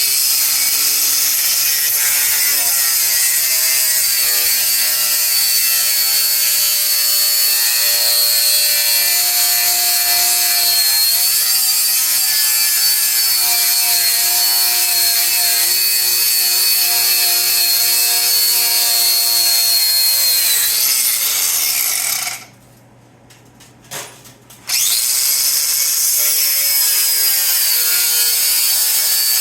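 Power cutoff tool cutting through sheet steel and old weld, running with a high whine and a hiss whose pitch shifts as the wheel is loaded. It stops about 22 seconds in and starts cutting again about two seconds later.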